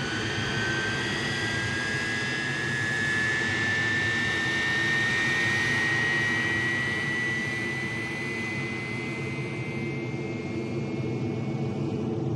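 Jet engine of an Aermacchi MB-339 trainer, a Rolls-Royce Viper turbojet, heard from inside the cockpit during takeoff and climb-out. A steady low rumble runs under a high turbine whine that rises slowly in pitch, then fades near the end.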